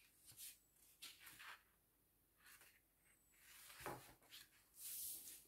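Faint rustling of paper being handled, with a soft knock about four seconds in.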